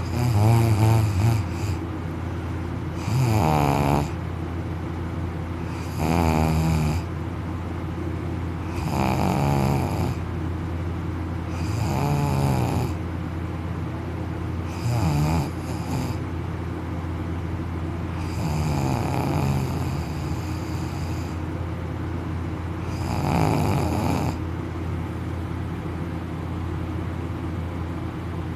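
A man snoring heavily in deep sleep, mouth open, a loud rasping snore about every three seconds, over a steady low hum.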